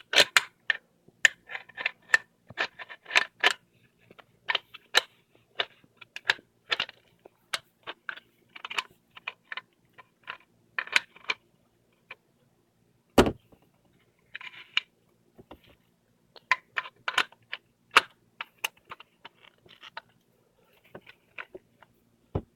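Metal parts of an aftermarket steering wheel quick-release hub clicking, scraping and rattling irregularly as the two halves are worked together by hand. There is a sharper knock about thirteen seconds in.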